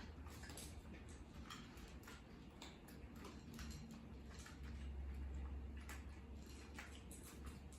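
Cats eating: irregular small clicks of chewing and crunching food, several a second, over a low steady hum.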